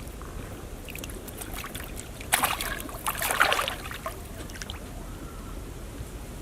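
Water splashing and sloshing, in a cluster of splashes about two and a half to three and a half seconds in, over a low steady outdoor background.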